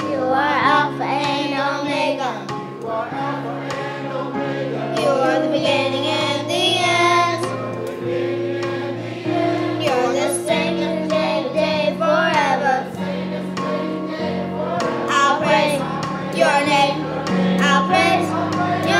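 Children's choir singing a gospel song with instrumental accompaniment, the backing holding low notes that change every second or two.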